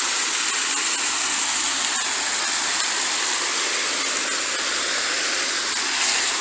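Steady hissing rush of falling and splashing water from a canal fountain jet and the water cascading down the canal's stone wall.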